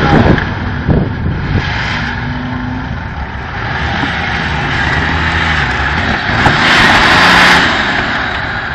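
Nissan Patrol 4x4's engine revving up and down under load as it shoves against a car, with tyres scrubbing on grass and a couple of sharp knocks in the first second or so. The revving swells to its loudest about seven seconds in.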